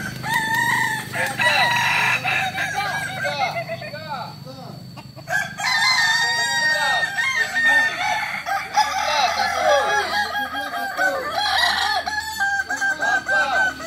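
Several kukuak balenggek roosters crowing over one another, their long crows broken into many short rising-and-falling notes, with a brief lull about four to five seconds in.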